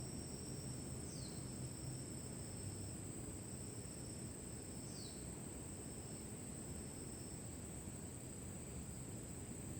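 Steady high-pitched insect trill, with two short falling chirps about four seconds apart, over a low outdoor rumble.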